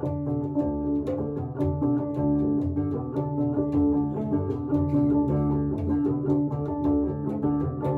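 Music played on plucked string instruments, with a deep bass part under a quick, even run of plucked notes.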